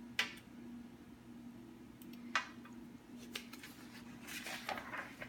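Hands shaping Model Magic modeling clay: a few small clicks and light taps scattered through, the sharpest about two and a half seconds in, over a steady low hum.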